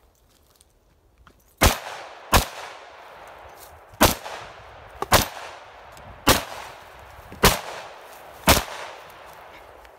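AK-47 rifle fired in seven single shots, spaced irregularly about a second apart, each followed by a short echo.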